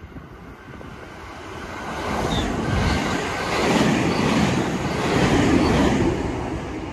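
Electric multiple-unit train passing through a station at speed. The rush of wheels on rail and air builds from about two seconds in, is loudest through the middle, and fades near the end.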